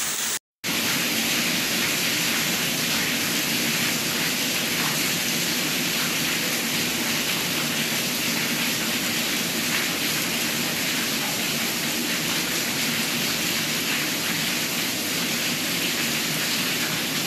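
Steady heavy rain, with water pouring off a roof edge. The sound cuts out for a moment just after the start, then runs on evenly.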